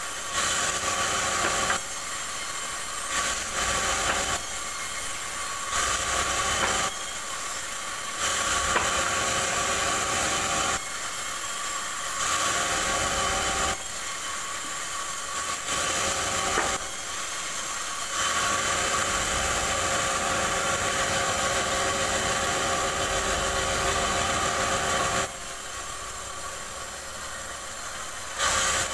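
Bandsaw mill running while its blade cuts through a rubberwood log in repeated passes. Each pass brings a louder, hissing cutting noise lasting one to about seven seconds, the longest near the end. Between passes only the machine's steady running sound remains.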